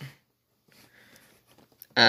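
Faint rustling of a cardboard toy box being handled, with a small click near the end.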